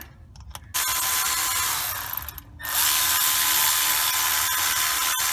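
Cordless ratchet whirring as it spins out the water pump pulley bolts, which were already loosened. It runs in two goes: from just under a second in, a brief pause a little after two seconds, then again until the end.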